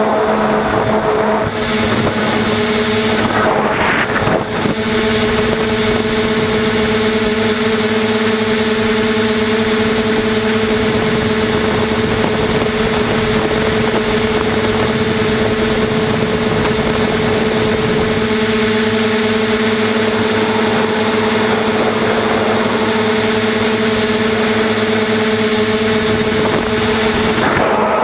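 Bambucopter Bluebird tricopter's three electric motors and propellers whining steadily in flight, heard from on board, with air rushing past the camera. A few brief surges, about three to four seconds in and again near the end.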